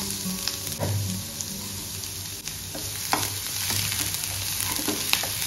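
Chopped onions sizzling in hot oil in a frying pan, stirred with a wooden spatula that knocks and scrapes against the pan several times.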